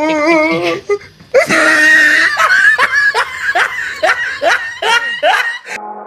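Loud, hearty laughter: a run of falling 'ha' strokes, about two or three a second. Near the end it cuts off and a steady sustained music chord begins.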